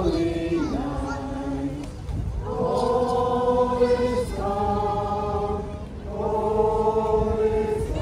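Group of voices singing a Christmas carol together, in long held notes with short breaks between phrases, over a low rumble.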